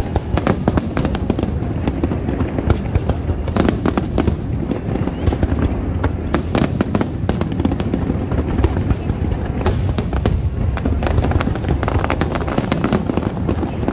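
Aerial fireworks display: shell bursts going off in quick, irregular succession, with clusters of sharp crackling over a continuous heavy low rumble.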